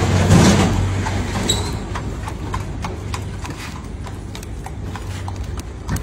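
Irregular light clicks and knocks from food being handled on a steel prep tray, over a steady low hum, with a brief rush of noise just after the start.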